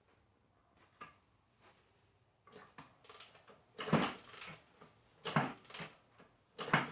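Honda XR100R being kicked over three times with its spark plug out for a spark test: short bursts of knocking and rattling from the kick-starter and engine turning over, about a second and a half apart, with a few light clicks before them.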